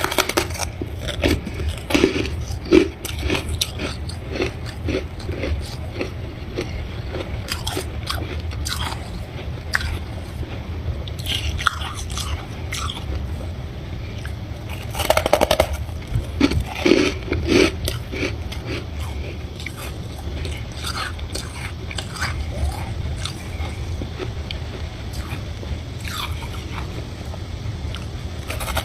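A person biting and chewing a chunk of crunchy freezer frost: irregular crunches, bunched into louder runs of bites about two seconds in, around twelve seconds and again between fifteen and eighteen seconds. A steady low hum runs underneath.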